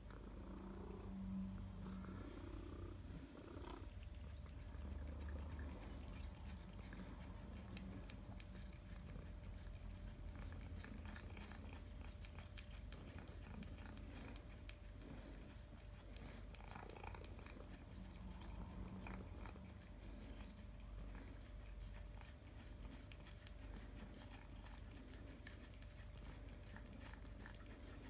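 Two British Shorthair cats licking a frozen tuna-brine ice lolly: a fast, steady run of faint wet licking clicks that starts a few seconds in, over a low steady hum.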